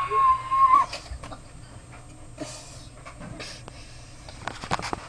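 A boy's yell, one held high-pitched cry lasting just under a second, followed by scattered clicks and rustling.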